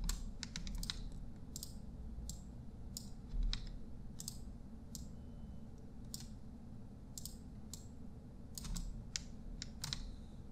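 Irregular clicks of a computer mouse and keyboard, with a quick flurry in the first second and another near the end, over a low steady hum.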